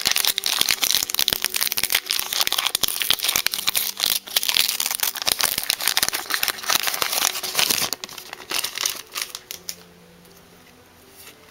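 Foil wrapper of a Pokémon Sword & Shield booster pack crinkling as it is handled and opened and the cards are pulled out: dense crackling that fades after about eight seconds.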